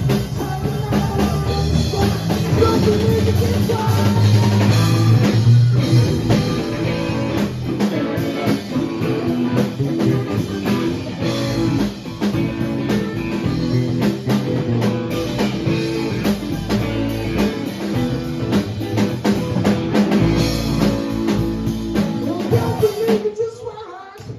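Live rock band playing, with a drum kit, bass and guitar; the music stops about a second before the end.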